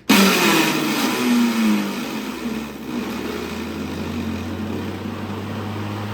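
Craftsman V60 electric lawnmower starting up with a loud racket. A tone falls over the first couple of seconds, then the noise settles steady over a low hum. The cause is the mower's worn plastic fan rubbing.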